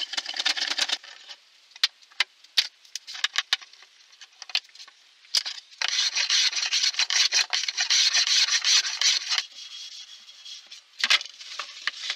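Hand work on wood and metal bar clamps. Scattered clicks and knocks come first, then a steady rasping rub on wood for about three and a half seconds starting about six seconds in, then quieter rubbing and a short scrape near the end.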